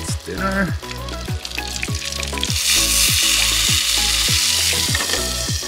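Food sizzling in a frying pan, the hiss swelling about halfway through and easing off near the end, under background music with a steady beat.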